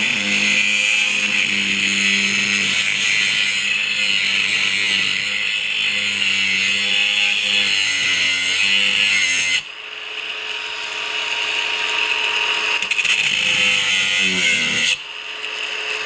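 Cordless angle grinder's cut-off wheel cutting into a steel padlock. The cutting noise drops sharply about ten seconds in and again near the end, then builds back up as the wheel bites again.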